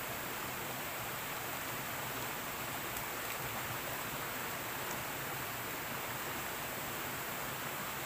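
Steady rush of a small stream flowing over rocks into a pool, an even hiss of water with no breaks.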